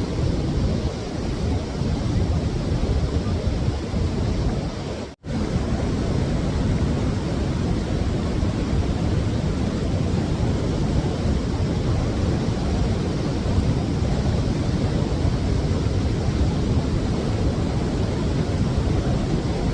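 Steady rushing roar of a waterfall, heavy in the low end, with a momentary dropout about five seconds in.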